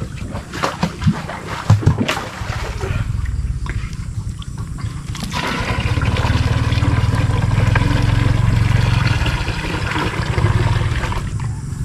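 Water poured from a small plastic pail into a plastic watering can. It is a steady splashing pour that starts about five seconds in and stops just before the end. A few knocks come in the first two seconds as the containers are handled.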